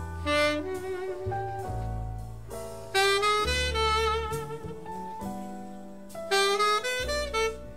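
Jazz quartet playing a slow melody: tenor saxophone phrases with wavering vibrato on the held notes, over piano chords and double bass.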